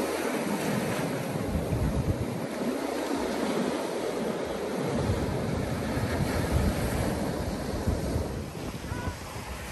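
Sea waves breaking and washing over rocks, with wind rumbling on the microphone, heaviest in the second half.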